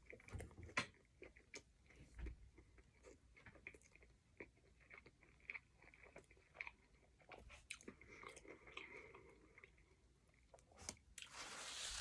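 A person chewing a mouthful of chicken sandwich close to the microphone: faint, scattered small crunchy clicks of biting and chewing. Near the end a louder hiss of noise comes in.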